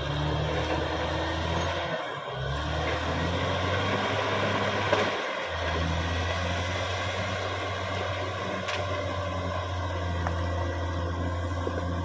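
Caterpillar D6R XL bulldozer's diesel engine running steadily as the machine works over cleared ground, with the clatter of its tracks; the engine drone breaks off briefly twice, and a single sharp knock sounds about five seconds in.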